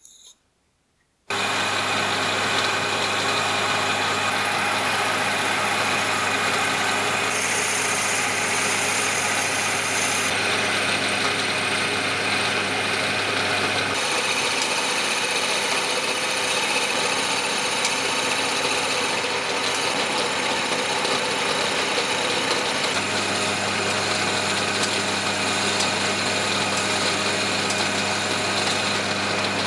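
Lathe running, its motor humming steadily while a cutting tool shaves the spinning wooden handle blank. The sound starts abruptly about a second in.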